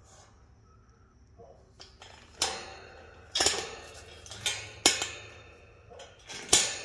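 Wire panels of a black metal rat cage clanking and rattling against each other as a side panel is handled and fitted to the cage frame, about five sharp ringing clanks in the last four seconds.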